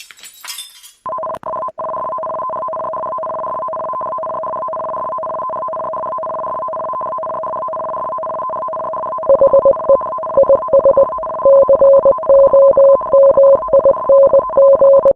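Steady two-tone electronic alert signal in the style of an Emergency Alert System attention tone, starting about a second in. From about 9 seconds in, a lower beep joins it, switching on and off in an irregular pattern of short and longer beeps.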